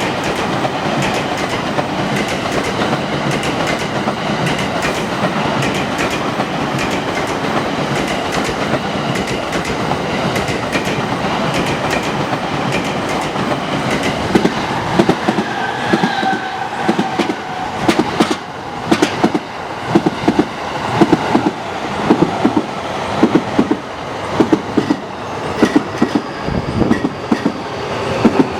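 A JR East E231/E233-series commuter electric train running past close by: a steady rolling rumble of wheels on rail, then from about halfway a rapid, regular clickety-clack of wheels crossing rail joints. About sixteen seconds in there is a brief falling whine.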